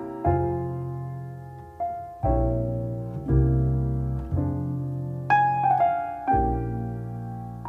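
Jazz piano playing a slow ballad: chords struck about once a second and left to ring, over held low bass notes.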